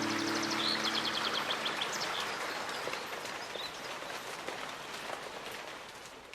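Nature ambience at the end of a tropical house track: birds chirp over a steady outdoor hiss like light rain or rustling leaves as the last synth chord dies away. The whole sound fades out gradually.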